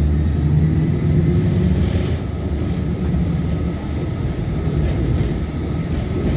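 Inside a MAZ-103.465 low-floor city bus under way: the steady drone of the diesel engine and road rumble. The engine note eases about two seconds in and builds again near the end.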